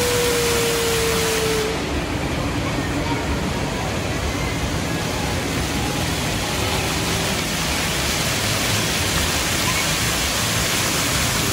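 Indoor fountain's water jets splashing into the basin, a steady rushing hiss. About two seconds in the high part of the hiss drops off for a couple of seconds as the jets change, then returns; a single held tone slides down and fades out just before.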